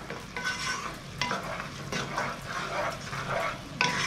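Wooden spatula stirring diced vegetables frying in a pot, repeated scraping swishes over a soft sizzle. The spatula knocks against the pot twice, the louder knock near the end.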